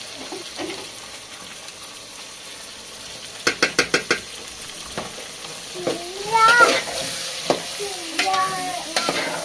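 Meat sizzling in a metal pot on a gas burner while it is stirred with a metal spoon and ladle. Near the middle there is a quick run of about five sharp metal taps, and in the second half two wavering high calls.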